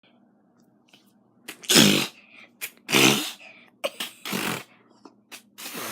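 A woman sneezing four times in quick succession. Each sneeze is a short intake followed by a loud burst, and the first two are the loudest.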